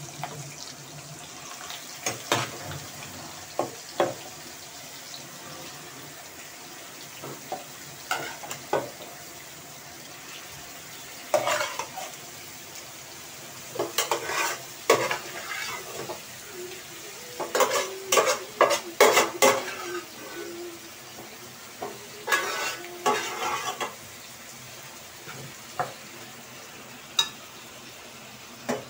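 Minced meat frying in ghee in a pan with a steady sizzle, while a metal spoon scrapes and knocks against the pan in spells as it is stirred, busiest in the middle stretch.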